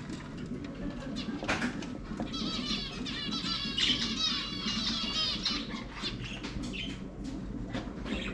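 Caged budgies and finches chattering: a dense run of rapid, high chirping calls, thickest from about two to five and a half seconds in, with a few sharp clicks.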